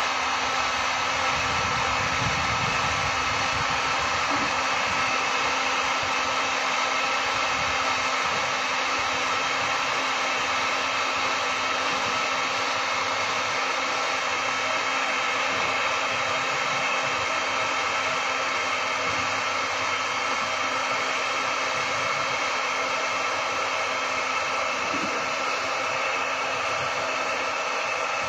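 A hot-air plastic welding gun's blower running steadily while filler rod is welded into a plastic water tank. It gives a constant hiss with a few steady hum tones in it.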